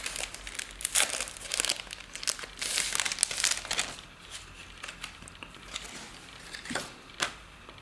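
Crinkling and rustling of a bunch of synthetic Sybai Twist Flash Hair fly-tying fibres being taken up and handled. It is busiest in the first half, thinning to a few scattered ticks near the end.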